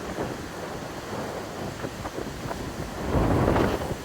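Wind rushing over the microphone with surf breaking behind it, and a stronger low gust about three seconds in.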